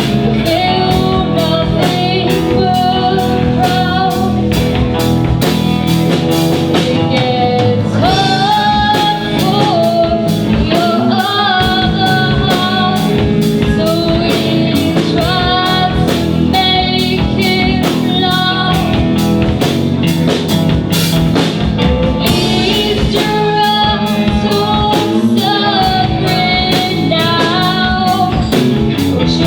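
A band playing a song live: a singer over guitar and drum kit, with a steady beat.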